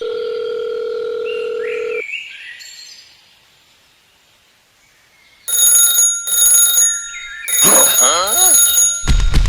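A steady electronic beep for about two seconds, then after a near-silent pause a high electronic ringing that switches on and off about twice a second, like an alarm bell.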